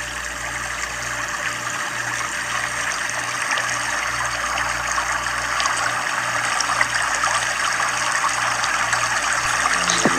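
Floodwater running steadily, a continuous rushing hiss of moving water.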